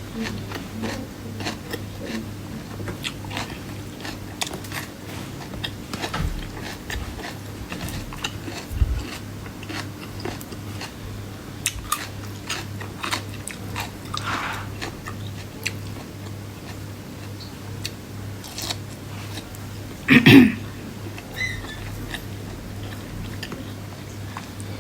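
Close-up eating sounds: biting, chewing and crunching as raw vegetables and food are eaten, a run of small clicks and crunches over a steady low hum. There is one brief, louder sound about 20 seconds in.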